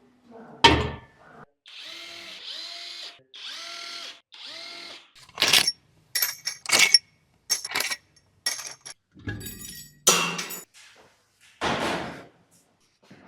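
Cordless power tool running in four short bursts, its pitch rising as it spins up each time, as fasteners are backed out during an engine teardown. Then a string of sharp metallic clanks and clinks as engine parts are handled and set down.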